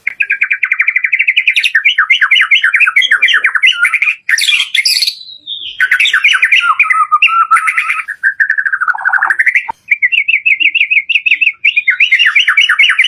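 White-rumped shama (murai batu) singing a loud, near-continuous 'dor' song: fast runs of rapidly repeated trilled notes, changing phrase several times, with one short break about five seconds in.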